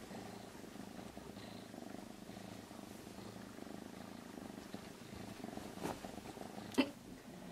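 Calico kitten purring steadily and softly. A sharp tap is heard near the end.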